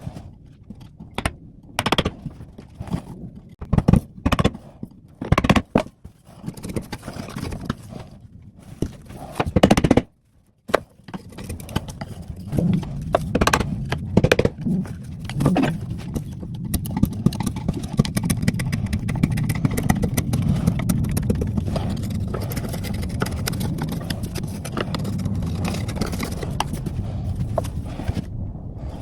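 Tools working wood while the corners of a slot are rounded out for a repair piece to fit: a series of sharp knocks for the first ten seconds or so, then, after a brief pause, a steady rough rattling tool noise that runs on for most of the rest.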